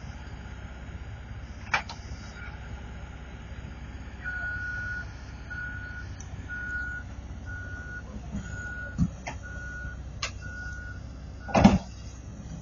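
Heavy diesel engine running steadily under a backup alarm that starts beeping about four seconds in, roughly one and a half beeps a second. A few sharp knocks ring out, the loudest near the end.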